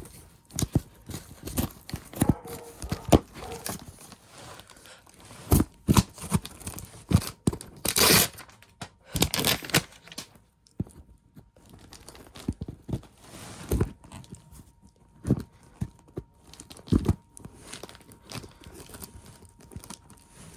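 Scissors snipping and cutting into a paper-wrapped cardboard box, with paper and packaging tearing and crinkling. Irregular sharp snips and knocks, with louder rustling bursts about eight and ten seconds in.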